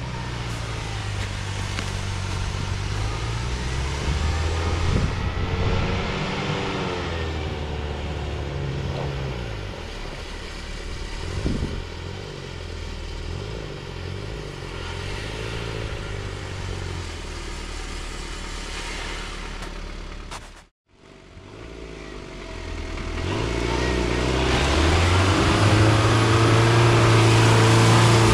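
Daihatsu Rocky 4x4 engine revving up and down as it pushes through slush and mud, its pitch rising and falling again and again. About two-thirds of the way in the sound cuts out for a moment and comes back louder and closer, the engine held at high revs near the end.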